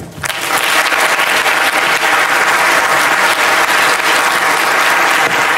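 Large audience applauding, the clapping swelling up over the first half second and then holding steady.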